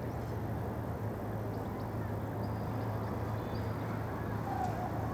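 Steady low drone of a ferry's engines with a constant hum, and a few faint, short high bird chirps in the middle.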